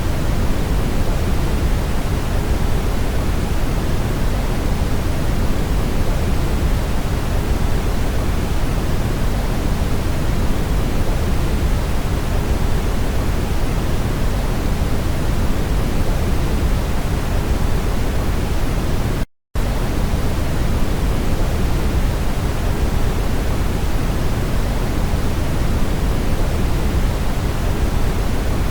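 Brown noise: a steady, deep rushing hiss with most of its weight in the low end, and no tones or events in it. It cuts out completely for a split second about two-thirds of the way through.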